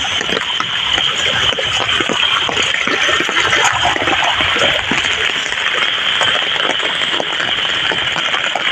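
Heavy rain pouring steadily, mixed with muddy floodwater rushing through a waterlogged paddy field: a dense, even hiss of water with no let-up.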